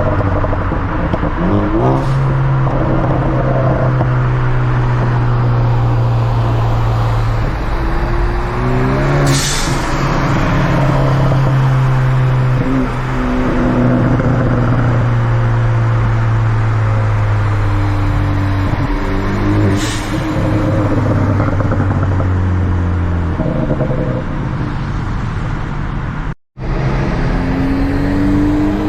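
Tuned Ford Focus ST turbocharged four-cylinder through a Borla catback exhaust, pulling hard with revs climbing repeatedly through the gears over a steady low drone. A few sharp cracks come on lift-off, the pops and crackles of the tune.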